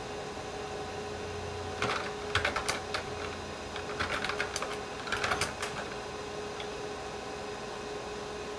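Keys typed on a computer keyboard in a few short bursts of clicks, over a computer's steady hum.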